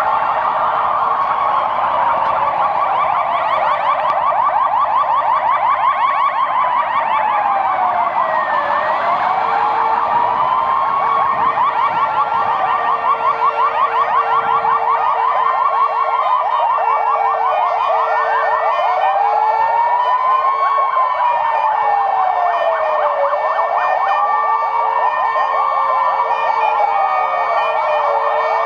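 Several emergency-vehicle sirens from a convoy of ambulances and a police car sounding together: slow wails rising and falling about every two and a half seconds, overlapping out of step, with a faster warbling siren over them.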